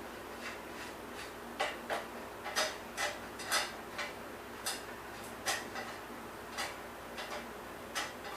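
Irregular light metallic clicks and taps of bicycle hub hardware and hand tools being handled as the freshly greased hub goes back together.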